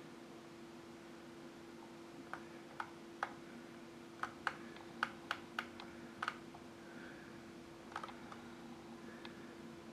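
About a dozen light, irregularly spaced clicks of computer keys, bunched in the middle and thinning out near the end, over a faint steady low hum.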